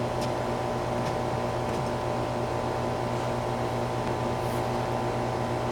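A steady mechanical hum made of several held tones, unchanging throughout, with a faint click just after the start.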